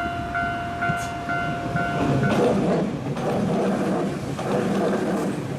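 Commuter electric train running along the rails with a steady rumble, and for the first two seconds or so a held tone and short beeps at about two a second.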